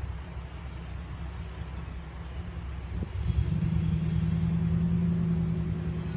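Diesel locomotives of an approaching freight train rumbling in the distance. About three seconds in the rumble swells and a steady low drone sets in as the engines work harder, exhaust smoke thickening.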